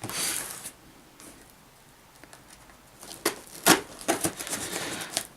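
Light handling noises: a brief rustle at the start, then a few sharp clicks and taps from about three seconds in, like objects being picked up and set down.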